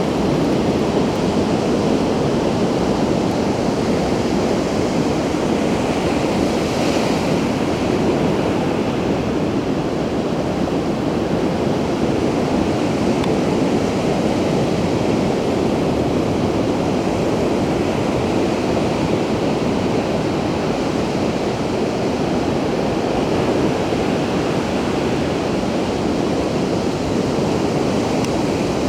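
Pacific Ocean surf breaking on the beach: a steady, unbroken wash of noise, strongest in the low-middle range.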